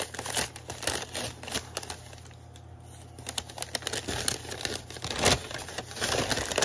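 Kraft paper bag being handled and opened, crinkling and rustling in quick crackles. It goes quieter for about a second in the middle, then the crinkling picks up again with a louder rustle about five seconds in.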